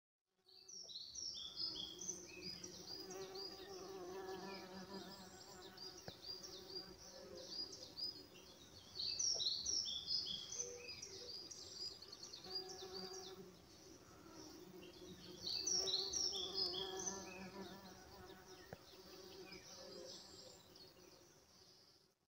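Summer countryside ambience: insects buzzing steadily, with a bird singing in repeated phrases of quick falling notes that come in three louder bursts. It fades in at the start and fades out at the end.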